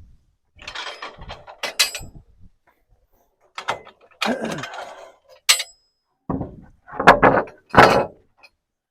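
Freshly sawn pine boards being handled: a series of irregular wooden knocks, scrapes and clinks, the loudest knocks near the end.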